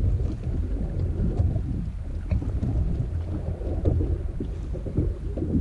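Wind buffeting the camera's microphone on an open boat: a low rumble that rises and falls unevenly, with faint light ticks over it.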